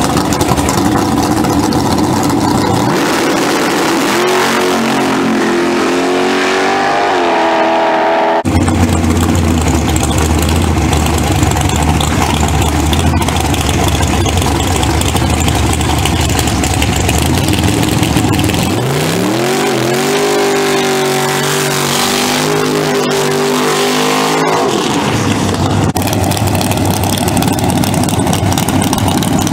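Drag-racing cars' engines: a first-generation Chevrolet Camaro launching and pulling away down the strip, its engine note climbing, then after a cut a second Camaro's engine rumbling deep and steady and revving up hard in the burnout box for about five seconds.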